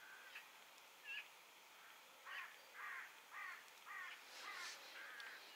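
A bird calling faintly: a few short chirps, then a run of about six harsh, caw-like calls at roughly two a second.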